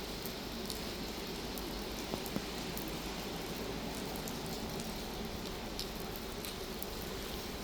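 Steady rain falling, with scattered sharp taps of individual drops.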